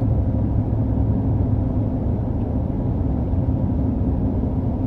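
Steady road and engine noise of a moving vehicle heard from inside the cabin: an even low rumble with a faint steady hum.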